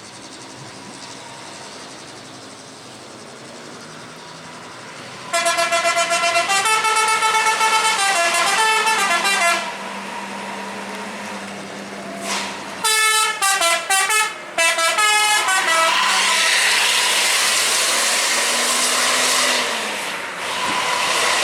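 Indonesian bus 'telolet' musical air horns playing a tune of stepping notes for about four seconds, answered a few seconds later by a choppier run of horn notes. After that comes a loud steady hiss.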